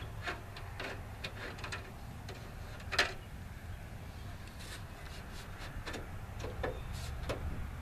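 Scattered small clicks and taps of a screwdriver and loose screws being handled while backing out headlight trim screws, the sharpest click about three seconds in. A low steady hum runs underneath.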